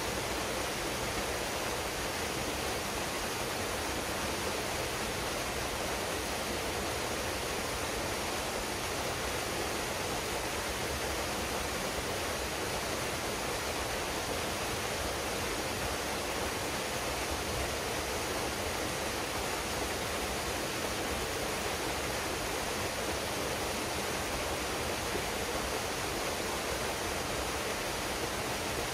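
Waterfall pouring into a pool: a steady, even rush of falling water with no breaks.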